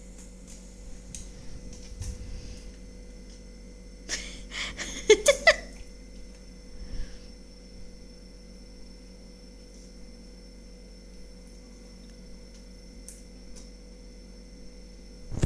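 Steady electrical hum in a quiet room, broken about four to five seconds in by a short cluster of sharp clicks and knocks.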